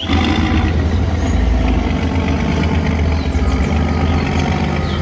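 Heavy multi-axle dump truck's diesel engine running steadily, a deep, even engine sound with no revving.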